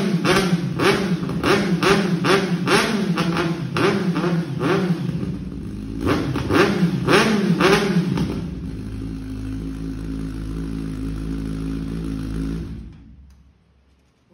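Kawasaki Z900 inline-four engine with an aftermarket exhaust, blipped repeatedly in quick throttle revs about twice a second, then given three bigger revs. It then settles to a steady idle and cuts off suddenly near the end.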